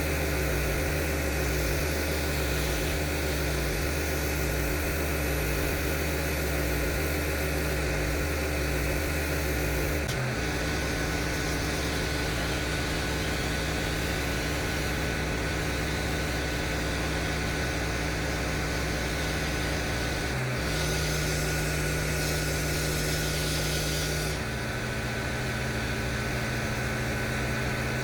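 Pressure washer engine running steadily over the hiss of spraying water. Its tone shifts abruptly about a third of the way in and twice more near the end.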